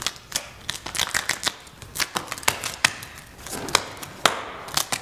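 Wrapping paper and ribbon being crumpled and pressed onto a wall by hand, making irregular sharp crackles and clicks, about two or three a second.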